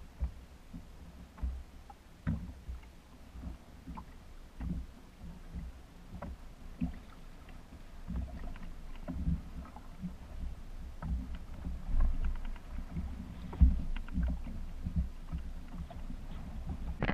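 Water lapping and slapping against the hull of a small open fishing boat, a low uneven rumble with scattered light knocks.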